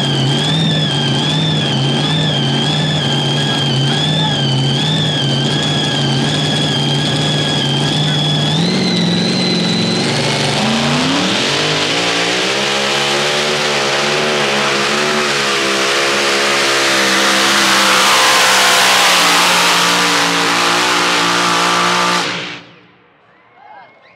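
Pulling tractor engine idling with a high wavering whine, then revving up about ten seconds in and running hard at high revs, its pitch wavering, until the sound cuts off suddenly near the end.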